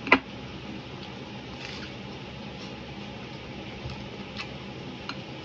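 Eating sounds: a person chewing, with soft wet mouth noises. There is one sharp click just after the start and a few faint ticks later on.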